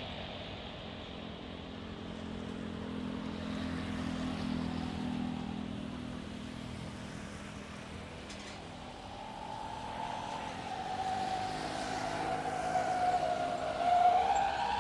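Jet airliner engines close by: a low hum swells a few seconds in, then a high engine whine with overtones grows louder through the second half and peaks near the end.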